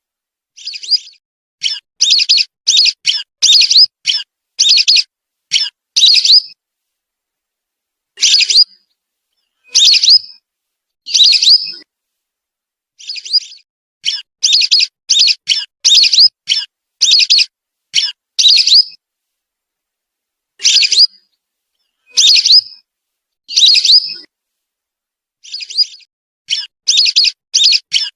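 Recorded whistling duck calls played as a bird lure: quick runs of short, high whistled notes, repeated in clusters with brief silent gaps between them.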